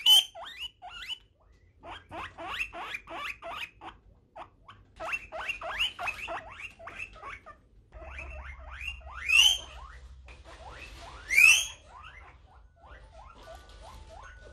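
Guinea pigs wheeking: quick runs of short squeaks, with two louder, drawn-out rising squeals about nine and eleven seconds in.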